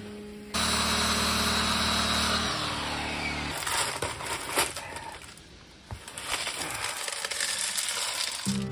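Circular saw starting suddenly and running through a cut in a pressure-treated board, then spinning down with a falling whine about three seconds in. A few sharp knocks follow.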